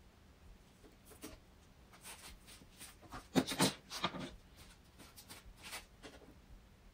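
Hands working wire and a foam feather at a PVC pipe frame: a run of short scrapes and rubs, with a cluster of louder scrapes a little past the middle.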